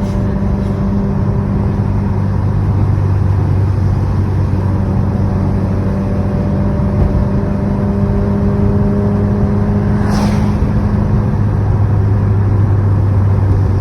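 2016 Subaru WRX's turbocharged flat-four running at a steady low-rpm cruise, a constant engine drone under road noise. A brief hiss about ten seconds in.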